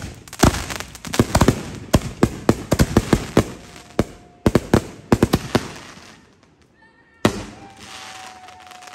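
Consumer aerial fireworks going off: a rapid volley of sharp bangs for about six seconds, then one more loud bang about seven seconds in. A steady tone follows the last bang.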